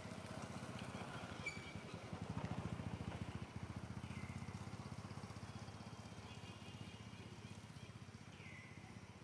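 A small engine running steadily nearby, a fast low putter that swells a little about two to three seconds in and then eases off.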